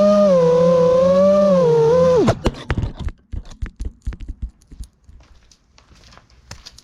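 FPV drone's motors whining steadily, the pitch wavering slightly, then winding down abruptly a little over two seconds in. Scattered short clicks and knocks follow.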